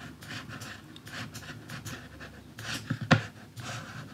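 Soft scratching and rubbing strokes of a hand working a computer pointing device, dragging and clicking to paint brush strokes, with one sharper click about three seconds in. Breathing close to the microphone.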